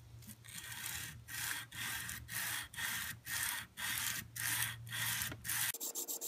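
150-grit sandpaper rubbed by hand along an oiled steel knife blade clamped in a vise, in even back-and-forth strokes about two a second. These are the final long, slow passes at this grit for a hand-rubbed finish. Near the end the strokes turn quicker and shorter.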